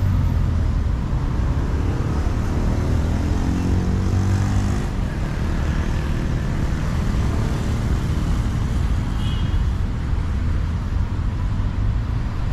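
Car traffic on a city road: a steady low road rumble, with an engine note rising in pitch for a few seconds about two seconds in.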